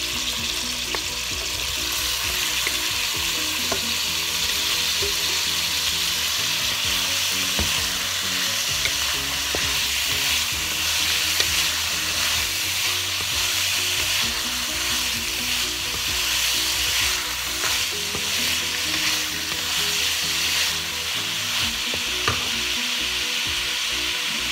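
Pre-boiled pork chunks sizzling steadily as they are sautéed with garlic and onion in a ceramic-lined frying pan, stirred with a wooden spoon, with a few light knocks of the spoon against the pan.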